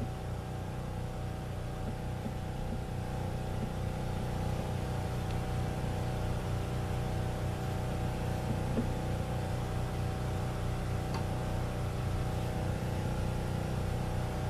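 An engine running steadily at a constant speed, a low drone that does not change, with a few faint taps.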